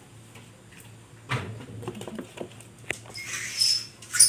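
Small handling noises of paper number slips being picked up over a plastic tub: light rustling and a few soft taps, with a sharp click near the end.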